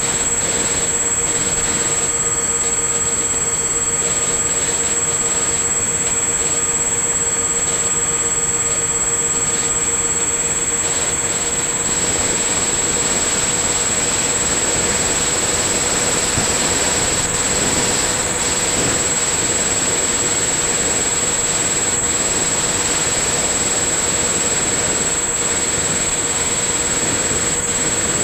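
Electric motor and propeller of a radio-controlled plane running steadily, heard from its onboard camera with air rushing past. A constant whine holds one pitch, and the rushing grows louder and brighter about twelve seconds in.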